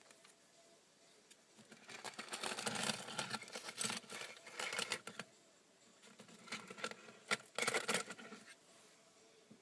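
A small animal scratching and rustling in quick, crackly bursts, in two spells: a longer one of about four seconds and a shorter one of about two seconds near the end.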